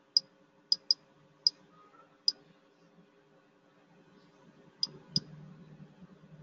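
Computer mouse clicking: about seven short, sharp clicks, two of them in quick pairs, with a pause in the middle.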